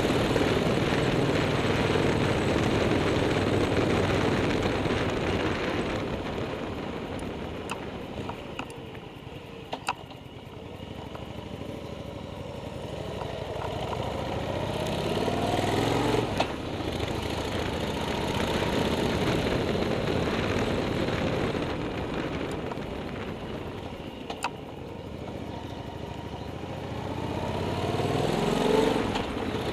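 Motorcycle engine climbing a mountain pass. It eases off twice into bends, then revs up each time with a rising pitch, about halfway through and again near the end.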